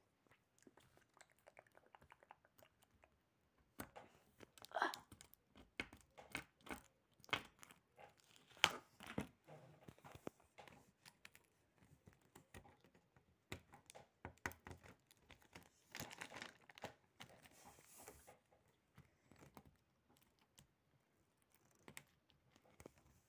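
Faint, intermittent handling of a taped paper cutout: crinkling and rustling of paper and sticky tape, with scattered light clicks and taps.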